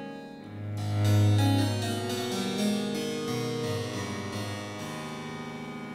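Viola da gamba and harpsichord playing together. A long bowed low note on the gamba swells about a second in, over the harpsichord's plucked chords.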